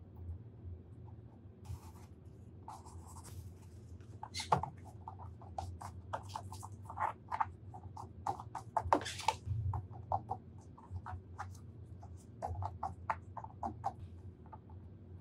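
Hands rubbing and pressing a sheet of xuan (rice) paper down onto a textured, straw-embedded canvas: a quick series of short, scratchy rustles, a few a second, louder twice. A low steady hum sits underneath.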